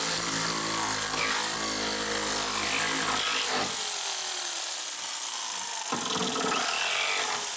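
Corded electric jigsaw running and cutting into a wooden panel, a steady sawing noise; its lower motor tone drops away about halfway through while the cutting hiss carries on.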